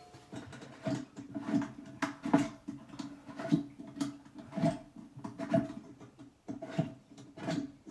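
Plastic parts of a Sloan Flushmate pressure-vessel cartridge being twisted and worked by hand, giving a run of short squeaky scrapes about two a second.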